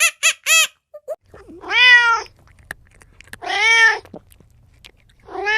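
Domestic cat meowing three times, each meow a drawn-out call that rises and then falls in pitch, about two seconds apart. Two short, high squeaky calls from another animal come in the first second.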